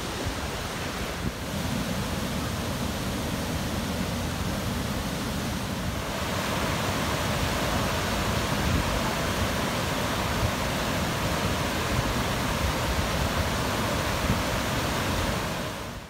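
Swollen Katsura River rushing fast, its water pouring over the weir as a steady roar, with gusts of wind on the microphone. It grows louder about six seconds in and fades out at the end.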